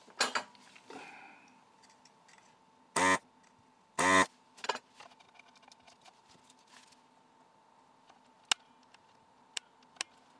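Small clicks and taps of fingers handling a circuit board and a small pin header. Two short, louder sounds come about three and four seconds in, and a few sharp ticks near the end.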